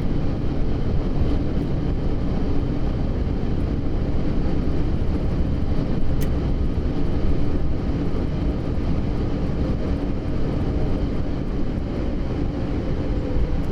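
Boeing 747-8's engines in reverse thrust during the landing rollout, heard from the cockpit as a loud, steady noise mixed with the roll of the wheels on the runway as the jet slows. It eases slightly near the end.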